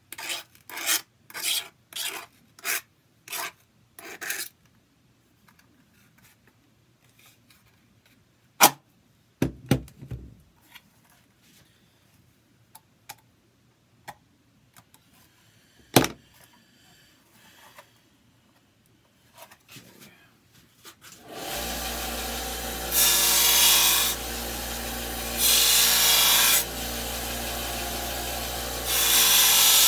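Knife blade scraping along the edge of a Kydex holster to deburr it: about six quick strokes, followed by a few scattered clicks and knocks. In the last third a steady machine starts running, louder in stretches, and it is the loudest sound.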